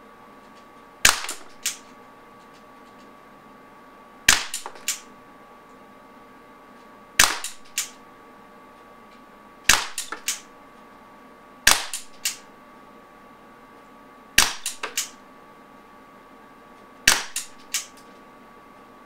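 Umarex Walther Nighthawk .177 CO2 pellet pistol firing seven single shots at a paper target, one every two and a half to three seconds. Each shot is a short, sharp crack followed within half a second by two or three fainter clicks.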